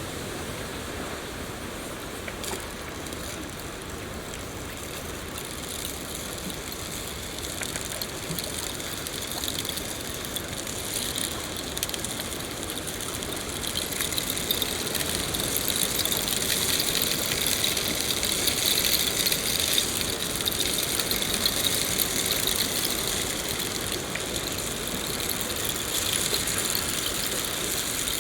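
Steady rain falling, a dense hiss with fine pattering, getting louder and heavier about halfway through.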